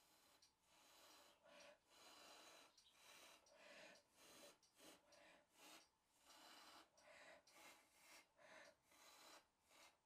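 A person blowing short puffs of breath through pursed lips onto wet acrylic paint to push it across the canvas. The puffs are faint and come one after another, roughly one or two a second.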